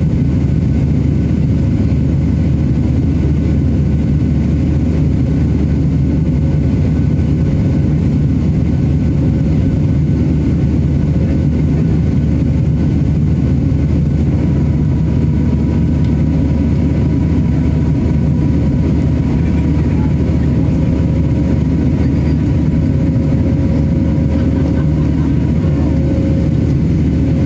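Steady roar of engine and airflow noise inside the cabin of a Southwest Airlines Boeing 737 in flight, heavy in the low range. A faint steady whine joins it about halfway through and fades near the end.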